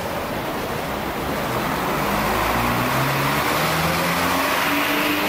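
City street traffic noise, with a vehicle's drone climbing slowly in pitch from about two seconds in.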